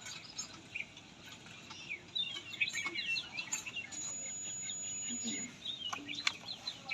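Small birds chirping throughout, with a steady high electronic beep from a multimeter on continuity range lasting over a second, about four seconds in, and a few sharp clicks near the end.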